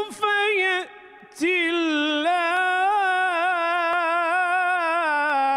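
A man reciting the Quran in melodic tajweed chant: a short phrase, a brief breath, then one long held note with wavering ornaments that stops abruptly.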